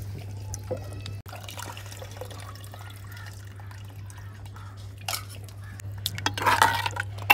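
Thin curry in a clay pot dripping and splashing as a steel ladle stirs it, loudest about six and a half seconds in, over a steady low hum.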